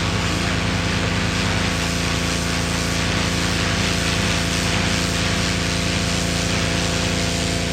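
Pressure washer running steadily, with the hiss of its water jet spraying on a concrete sidewalk.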